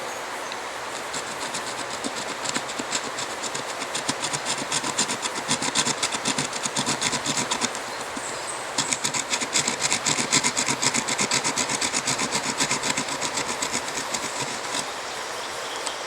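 Hand saw cutting wood in quick, even back-and-forth strokes, in two runs with a short break about halfway.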